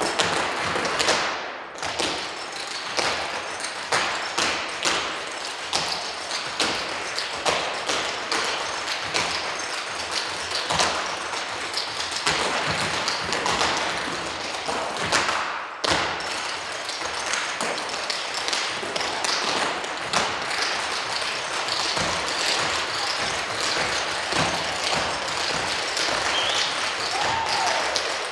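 Rapid rhythmic footwork: several dancers' shoes tapping and stamping on a wooden stage floor, in quick runs of sharp taps with heavier stamps among them, for percussive dance performed as a group.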